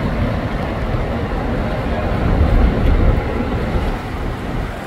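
Street traffic rumbling steadily, swelling a little about halfway through.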